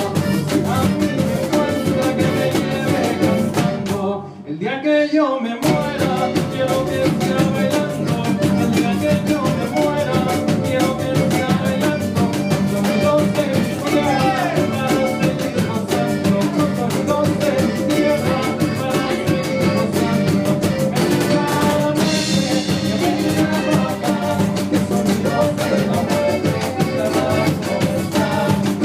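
Live band playing an instrumental passage with drums and a steady beat, the music breaking off briefly about four seconds in before the full band comes back in.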